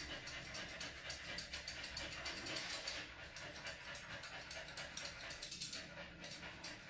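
Grooming scissors snipping through a dog's chest fur in quick, repeated cuts.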